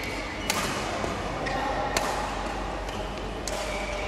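Sports hall ambience at a badminton match between points, with three sharp clicks about a second and a half apart and faint distant voices, echoing in the large hall.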